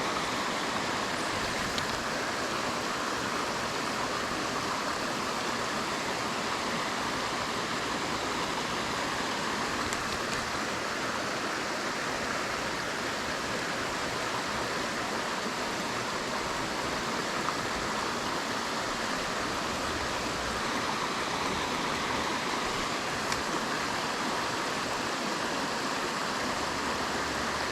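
A small creek flowing steadily, an even, unbroken rush of running water.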